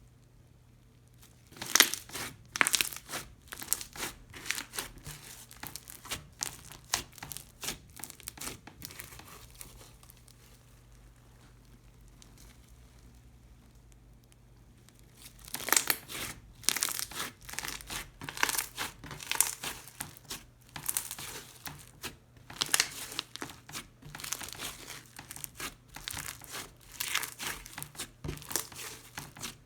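Crunchy slime loaded with foam beads and seed beads being squeezed and pressed by hand, giving dense crackling and popping. The crackling comes in two long spells with a quieter stretch of a few seconds between them.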